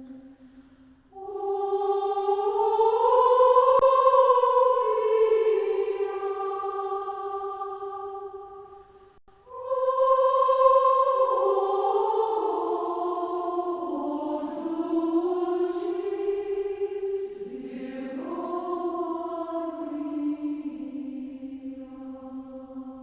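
A choir singing a slow Marian hymn in long held notes and several parts: one phrase, a brief break about nine seconds in, then a second phrase that fades toward the end.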